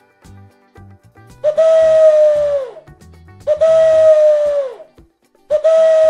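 Pigeon cooing: three long hooting coos about two seconds apart, each held on one pitch and then sliding down at its end, over soft background music.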